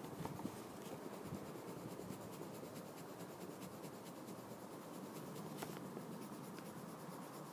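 White Winsor & Newton coloured pencil rubbed over a layer of blue pencil on paper to blend the colours: faint, steady scratching of the pencil lead on the paper.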